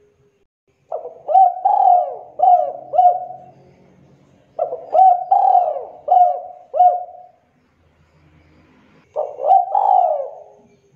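Spotted dove (derkuku) cooing in the 'kuk 2' song type: three phrases of several coos each, spaced a few seconds apart, the first two longer and the last shorter.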